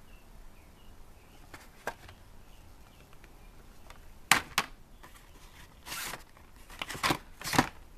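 Cardboard-and-plastic blister cards of die-cast toy cars being flipped through in a plastic tub: scraping rustles and clacks of card against card and tub. The sharpest are two clacks close together about halfway through, followed by several short rustles near the end.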